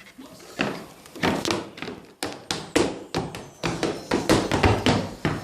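A child's hard-soled click-clack shoes tapping and stamping on a hard floor in an uneven run of sharp clicks and thuds, starting about half a second in.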